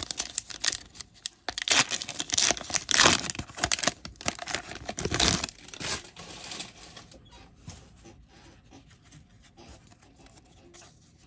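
A foil trading-card booster pack being torn open and crinkled by hand, loudest in the first six seconds or so. The crackle then dies down to faint handling of the card stack.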